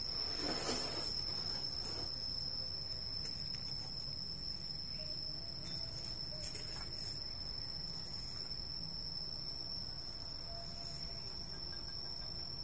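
Insects trilling steadily in one high, even tone over a low background rumble, with a brief rustle about half a second in.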